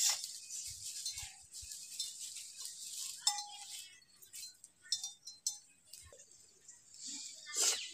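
Glass bangles clinking and jingling in light, irregular bursts as the hands work dal paste and set it down. A sharp clink marks the start.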